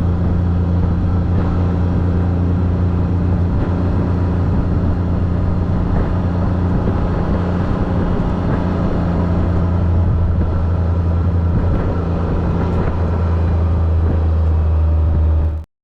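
Four-wheeler (ATV) engine running at a steady speed while riding, with a low, even drone. The sound cuts off abruptly just before the end.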